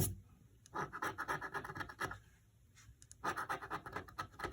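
Scratch-off lottery ticket (Jumbo Bucks Power Shots) being scratched in two quick bursts of rapid scraping strokes, rubbing the coating off the number spots, with a short click at the very start.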